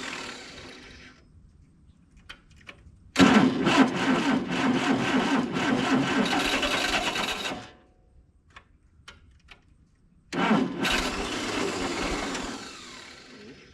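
Starter cranking the freshly rebuilt engine of a 1964 Allis Chalmers i40 tractor in repeated attempts that don't catch. The new high-compression pistons and rings are tight in the cylinders, so the starter can't spin the engine fast enough to start it. One attempt winds down about a second in, then there are two more long cranks with faint clicks between them.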